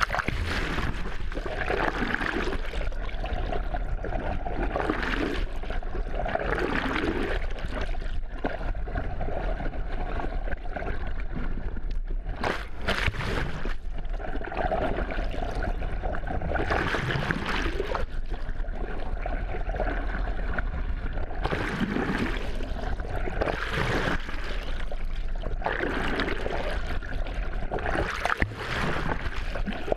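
Muffled rush of water over an underwater camera housing dragged through the sea on a pole, surging and easing every few seconds over a steady low rumble.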